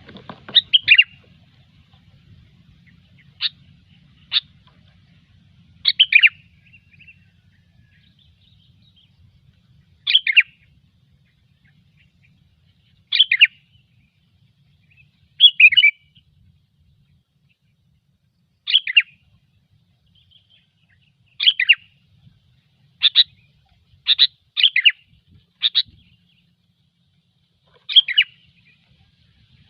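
Sooty-headed bulbul (kutilang) giving short, bright chirping calls every few seconds at irregular intervals, with a quick run of four calls near the end.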